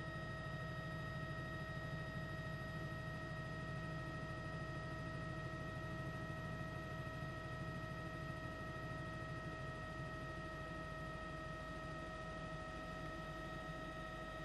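Steady electrical hum with several constant high-pitched whine tones over a hiss, unchanging throughout.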